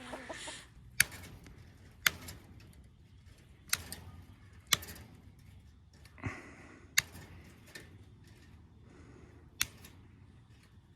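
Cutters snipping through chicken wire, a sharp click with each cut, about seven cuts spaced irregularly a second or two apart.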